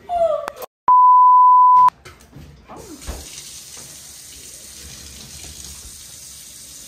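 A censor bleep: one steady high beep about a second long, starting about a second in, with all other sound cut out around it, just after a short burst of voice.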